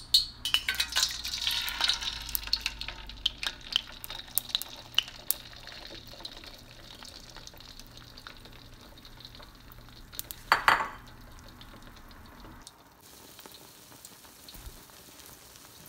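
Beaten eggs poured into hot cooking oil in a stainless steel pan, crackling and sizzling loudly at first and settling to a quieter steady sizzle as they set. A short louder burst comes about ten seconds in.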